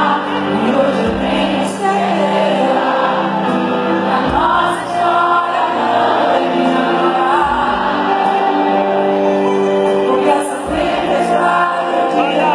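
Live pop ballad played by a band with guitars, under a female lead singer's voice, with many voices singing along. Heard from within the audience.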